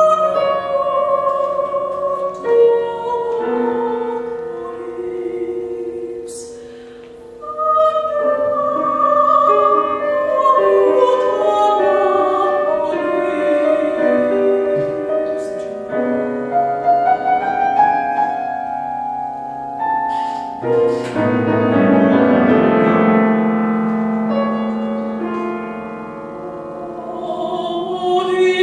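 Soprano singing a classical art song with grand piano accompaniment. The music drops to its quietest about seven seconds in and swells to its loudest a little past twenty seconds.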